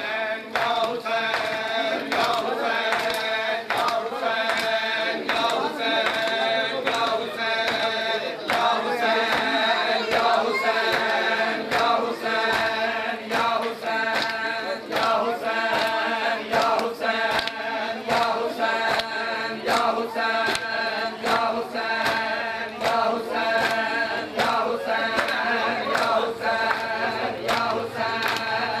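Men chanting a Shia noha lament in unison, with the slaps of hands beating on bare chests (matam) landing in a steady rhythm under the voices.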